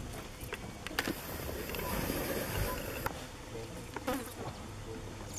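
An insect buzzing for about two seconds, starting about a second in, over a steady low rumble.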